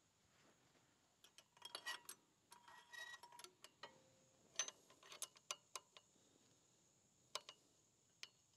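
Light metallic clicks and clinks of small engine parts being handled by hand on a Kohler riding-mower engine, a busy scatter of sharp ticks with a few brief rings for several seconds, then two more clicks near the end.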